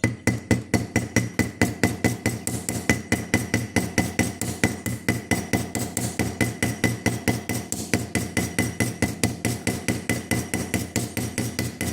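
Small hammer rapidly peening the handle pins of a folding pocket knife, an even run of light metallic taps at about six a second, each swelling the pin ends to fix the handle and blade in place.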